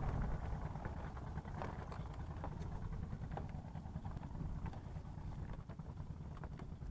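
Wind buffeting the microphone in an uneven low rumble, with scattered light clicks and knocks from handling a fishing rod and spinning reel.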